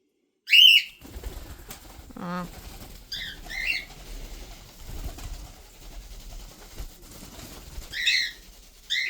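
Pet cockatiels chirping: one loud arched chirp near the start, two shorter chirps about three seconds in, and more near the end, with low rustling between the calls.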